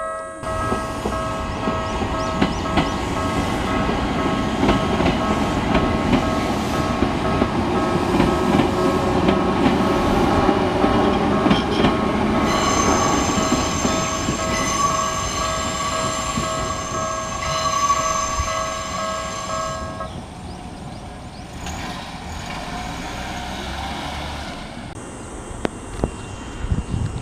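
A level-crossing warning bell, the Tokyu-style electronic crossing sound, rings steadily while an electric train runs past over the rails. The bell stops about 20 seconds in and the train noise fades away.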